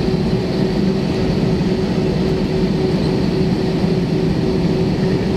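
Inside the cabin of an Airbus A319 taxiing with its IAE V2500 engines at low thrust: a steady drone with a constant held tone over the rumble of the rolling aircraft.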